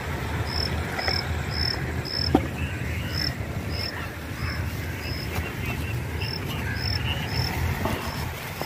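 A cricket chirping: short, high, single-pitched chirps repeating about twice a second, over a steady low rumble.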